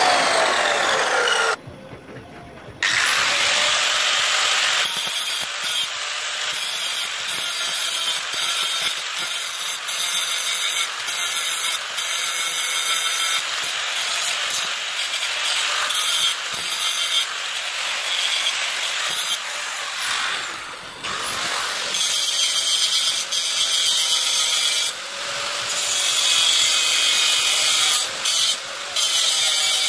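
An abrasive cut-off saw spins down after a cut, its pitch falling. Then a handheld angle grinder cuts and grinds metal square tubing with a continuous high grinding noise. It stops briefly about two-thirds through and spins up again.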